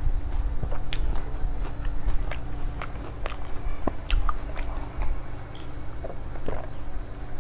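Close-up mouth sounds of eating fuchka (pani puri): crisp fried puri shells cracking and being chewed, in irregular sharp crunches, over a steady low hum.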